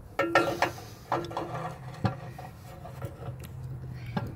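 A long metal tool scraping, squeaking and knocking against the riding mower's underside as the fuel spigot is levered up into a new fuel tank bushing. Two scraping squeals come in the first second and a half, then a sharp knock about two seconds in.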